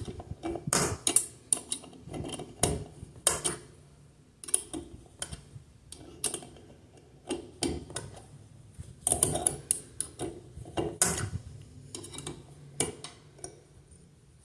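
Steel Allen key turning the hex set screw under a chrome tub spout: a run of irregular metal clicks and ticks as the key is turned and repositioned to tighten the spout snug.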